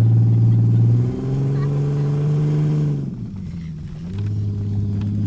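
Jeep engine running under throttle: a steady note that steps up in pitch about a second in and climbs a little, drops off around three seconds, then settles back to the first steady note about four seconds in.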